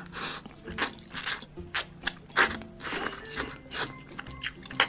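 Close-up eating sounds: noodles in a thick, sticky sauce slurped up in repeated wet pulls, mixed with chewing, about two mouth noises a second.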